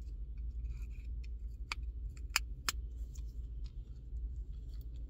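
Small flat-blade screwdriver prying apart the plastic shell of a Toyota RAV4 key fob: faint scrapes and ticks, then three sharp plastic clicks about two seconds in as the case snaps open, over a low steady hum.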